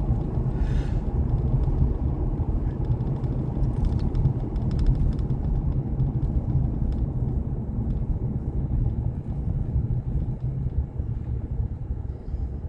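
Vehicle driving on the road: a steady low rumble of engine and tyre noise, easing off a little near the end.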